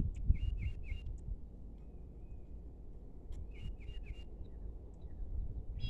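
A small bird calling in two quick runs of three short chirps, one near the start and one about three and a half seconds in, over a steady low rumble.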